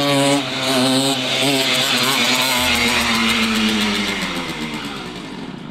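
Simson moped's two-stroke single-cylinder engine revving hard with the throttle worked on a wheelie attempt. The pitch wavers for about two seconds, then the note falls slowly and fades.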